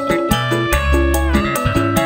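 Live dangdut koplo band music: a keyboard melody with a bass line and quick, regular kendang drum hits.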